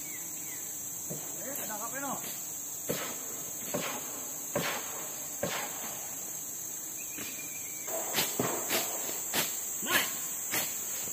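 Steady, high-pitched drone of forest insects, with a series of sharp knocks over it that come faster and louder in the last few seconds. A voice is heard briefly about two seconds in.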